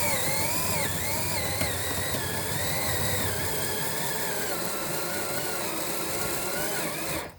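DeWalt DC970 18-volt compact cordless drill boring a hole through a wooden board. The motor whine wavers and slowly drops in pitch as it works under load on a battery near the end of its charge. It stops just before the end.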